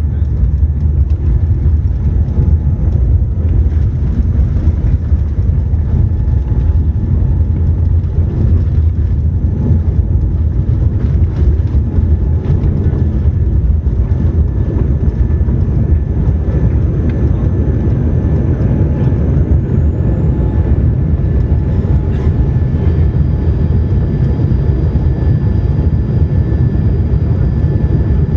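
Cabin noise inside a Boeing 787 Dreamliner on departure: a loud, steady low rumble from the engines and airframe, with faint steady whines above it. A high whine rises briefly about twenty seconds in, and another faint whine sets in a few seconds later.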